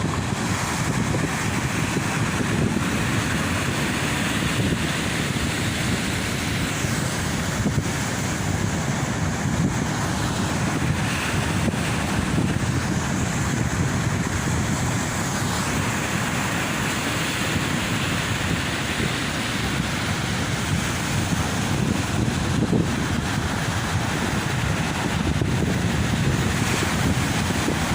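Ocean waves washing onto a beach in a steady surf, with wind buffeting the microphone and adding a low rumble.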